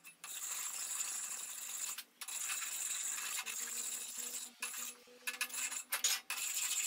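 Steel file scraping and rasping against the inside of a steel axe head's eye, in uneven stretches with brief pauses, with light metallic clinks.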